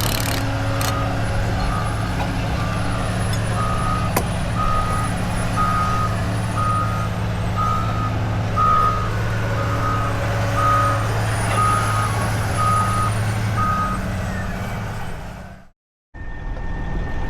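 Heavy vehicle's reversing alarm beeping about once a second over a steady diesel engine drone. The engine sound fades near the end and cuts out briefly.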